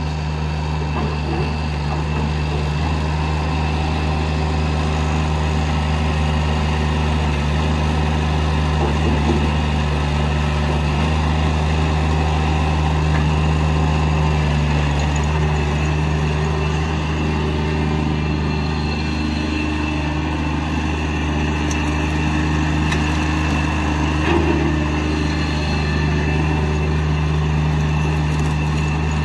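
Toro Dingo X525 compact loader's 24 hp Kubota diesel engine running steadily.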